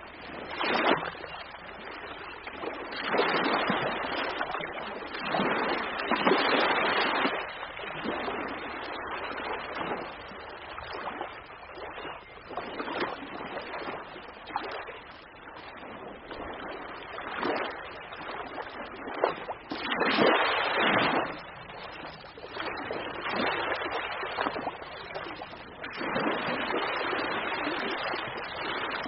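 Ocean waves washing on the shore, a steady rushing that swells and fades every few seconds as each wave breaks.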